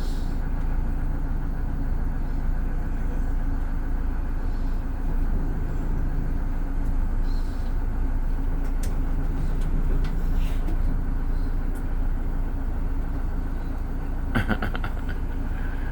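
GM New Look bus's diesel engine running steadily, a low drone. Near the end there is a brief rattle of quick clicks.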